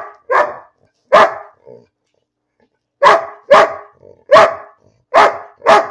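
Large fawn mastiff-type dog barking at her owner for no evident reason: about seven loud single barks, two in the first second and a half, a short pause, then five more in quicker succession, with soft grunts between them.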